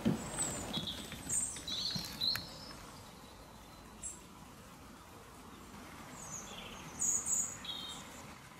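Small songbird chirping: short high calls in two groups, one in the first couple of seconds and another about six to eight seconds in, over faint outdoor background noise. A brief low thump right at the start.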